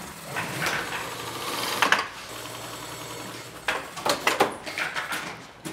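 Brother industrial double-needle sewing machine stitching heavy fabric in short runs, speeding up over the first two seconds. Sharp clicks come at about two seconds and again around four to five seconds.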